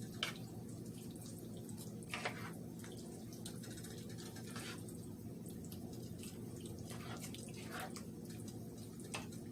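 Tikka masala sauce simmering in a pan, with a wet pop or drip every second or two over a steady low hum.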